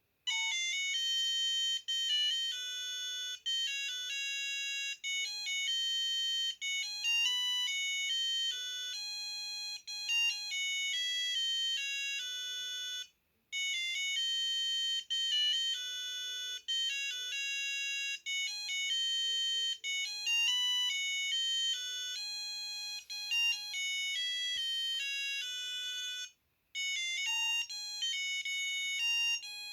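Samsung SGH-A300 mobile phone playing a ringtone through its speaker: a melody of quick electronic notes that breaks off briefly about thirteen seconds in and again near the end, starting over each time as the ringtone loops.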